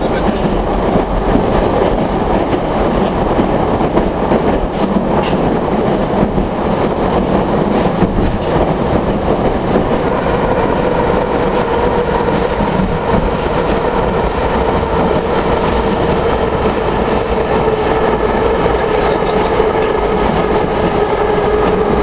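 Metro train heard from inside the carriage, running through the tunnel and pulling into a station: steady rumble and wheel-on-rail noise. From about halfway, a whine rises above it and slowly falls in pitch as the train slows.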